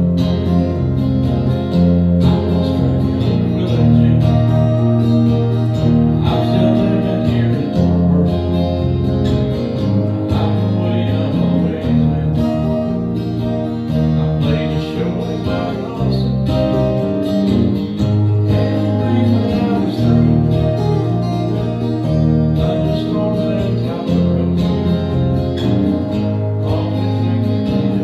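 Small band playing a country song: acoustic guitars strummed in a steady rhythm over a bass line.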